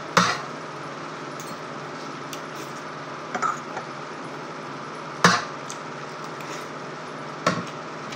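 Metal spoon and fork clinking and scraping on a ceramic plate and bowl while eating. There are a few sharp clinks, the loudest just after the start, about five seconds in and near the end, over a steady low hum.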